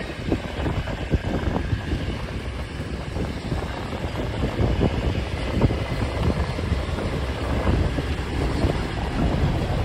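A streamlined passenger train's stainless-steel cars roll past at low speed, with a steady rumble of wheels on rail and many irregular clicks and clacks as the wheels cross the rail joints. Wind buffets the microphone. Near the end the sound grows louder as the EMD E5 diesel locomotive, with its two 12-567 engines, draws alongside.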